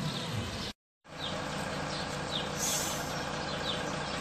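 Steady outdoor street noise with a vehicle engine running, broken by a brief total dropout a little under a second in where the footage is spliced.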